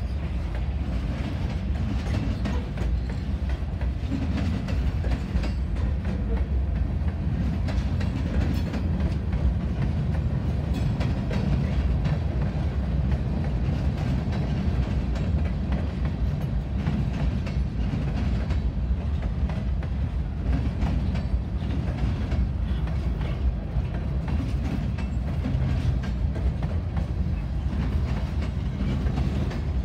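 Freight train boxcars rolling past: a steady low rumble of steel wheels on the rails, with light intermittent clicking as the wheels cross rail joints.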